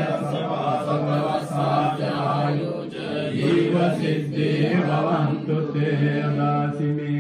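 Theravada Buddhist chanting: low male voices chanting together on a steady, nearly level pitch, in long held phrases.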